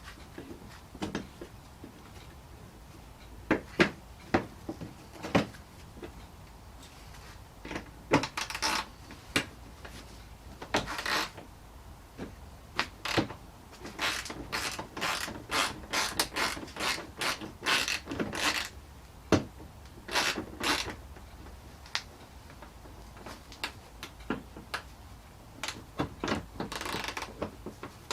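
Hand ratchet with an 8mm socket clicking in short bursts as small bolts are run in and tightened, with a few single knocks between the runs.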